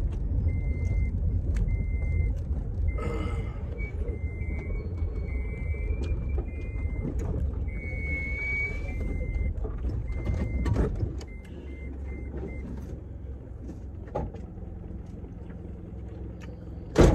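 Car interior with low engine and road rumble and a repeating short electronic beep, about two a second. The rumble drops about 11 s in, and the beeping stops soon after. A loud thump comes near the end.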